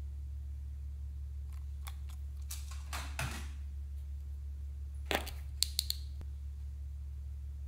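Light clicks and rustles from small plastic toy parts being handled, a cluster a few seconds in and a quick run of sharper clicks about five seconds in, over a steady low hum.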